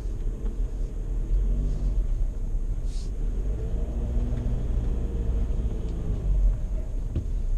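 Volkswagen Amarok 2.0 BiTDI twin-turbo four-cylinder diesel pickup driving off-road, a heavy low rumble under an engine note that rises and falls, with a knock near the end.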